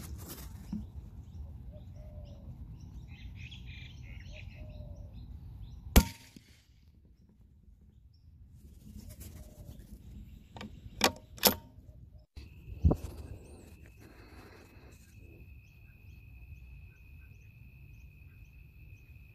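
A CZ452 .22 LR rimfire rifle firing a subsonic round once, a single short sharp crack about six seconds in. Several lighter sharp clicks follow a few seconds later, with faint bird chirps and a low wind rumble early on.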